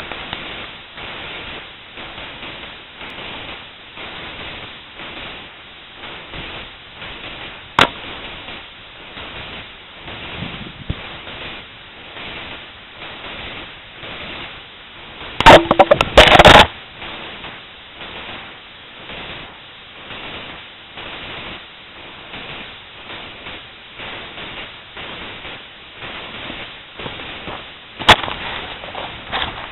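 Shots from a .22 Long Rifle loaded with black powder, fired toward the microphone. A sharp single crack comes about 8 s in and another near the end, and a louder jumble of cracks and knocks lasting about a second comes about halfway, all over a steady pulsing hiss.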